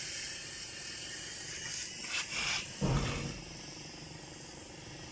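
Small toy remote-control helicopter in flight, its tiny electric motors and rotor blades giving a steady high whirring hiss. A short low thump comes about three seconds in.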